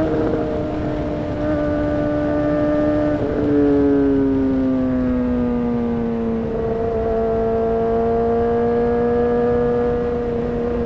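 Honda CBR600RR's inline-four engine running at steady road revs, with brief breaks near the start and about three seconds in. After the second break the revs ease down over a few seconds and then hold steady, over a rushing noise.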